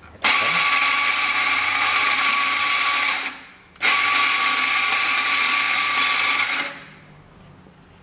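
CG-800 electric espresso grinder grinding coffee fine, at its espresso setting, into a portafilter. It starts abruptly with a steady high whine and runs about three seconds. It stops briefly, then runs again for about three seconds before winding down.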